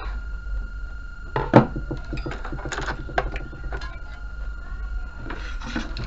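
Handling noise: scattered knocks and rubbing, the sharpest knock about a second and a half in, over a steady low hum and a faint steady high tone.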